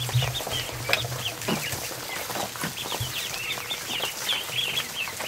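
A barnful of ducklings peeping, a dense overlapping stream of short high-pitched chirps, with a few faint knocks among them.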